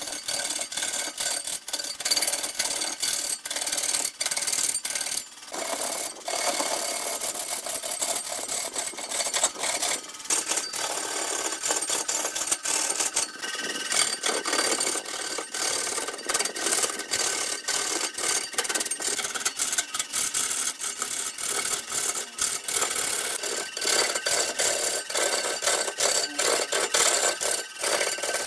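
A hand-held turning tool cutting into a large log spinning on a wood lathe: a continuous rough scraping hiss of wood being cut, full of rapid, irregular clicks and rattles.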